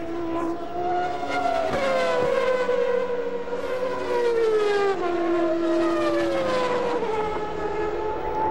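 Formula One car engines screaming at high revs on track, their note sliding slowly down in pitch twice as the cars pass by or lift off.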